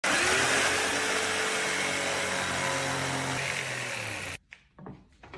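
Black+Decker CurveControl jigsaw running and cutting along a curve in a pine board, a steady buzzing motor with the blade rasping through the wood. It stops suddenly about four seconds in, leaving only a few faint knocks.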